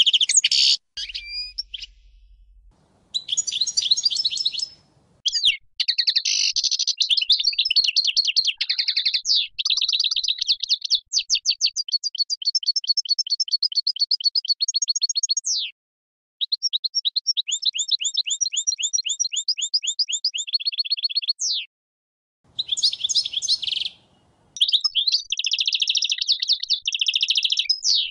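European goldfinch of the large Stieglitz Major type singing: a long song of fast twittering phrases and long runs of rapid repeated notes, broken by a few short pauses.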